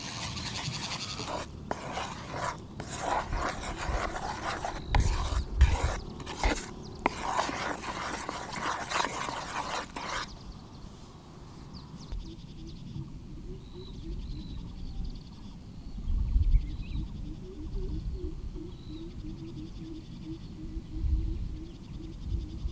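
Rubbing and scraping in quick irregular strokes that stop about ten seconds in, followed by a quieter stretch with faint high chirps and a few dull low thumps.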